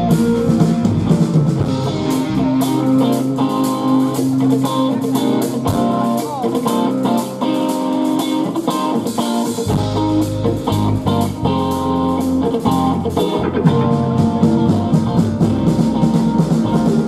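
Live rock band playing: electric guitars over bass guitar and a Sonor drum kit, with a steady drum beat. The low bass end thins out for a stretch in the middle and comes back in strongly about ten seconds in.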